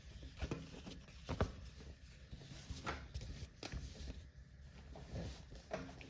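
Faint handling noises from a cross-stitch kit's packaging: a few light, separate taps and rustles as the packet of metallic floss is picked up and handled.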